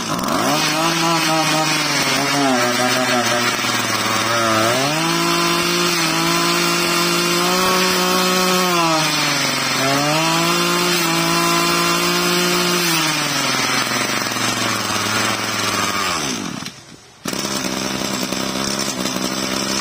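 Ryobi EKK-2620 26cc two-stroke brush-cutter engine running, revved up by hand twice and held for a few seconds each time, dropping back to a low, uneven idle in between. It cuts out briefly near the end, then idles again.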